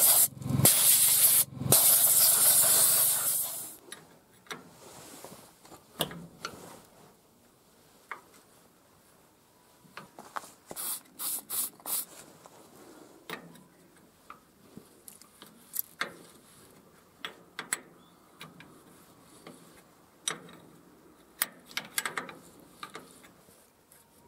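Aerosol spray can hissing in three bursts, the last about two seconds long, then quieter scattered clicks and metal taps of hands and tools working on the engine.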